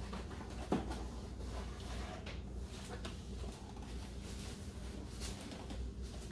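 Quiet room tone with a steady low hum, a faint click just under a second in, and a short knock at the very end.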